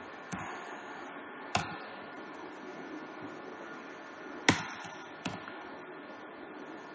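Four sharp, isolated keyboard key clicks, unevenly spaced, over a steady low hiss.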